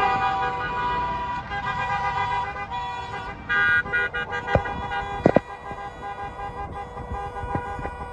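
Several car horns honking at once, long held blasts overlapping, with a louder blast about three and a half seconds in. A few sharp clicks about five seconds in.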